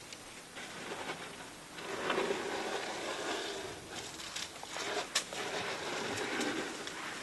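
African elephant feeding against a tree: a rough rustling and scraping of bark and foliage that builds about two seconds in, with a few sharp cracks, the loudest about five seconds in.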